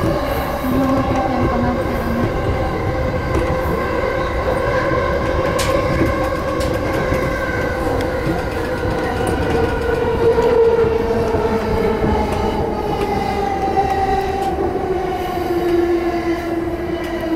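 Yamanote Line E235-series electric train braking into a station: the traction motors' inverter whine falls slowly in pitch over wheel and rail rumble, with a single click about six seconds in.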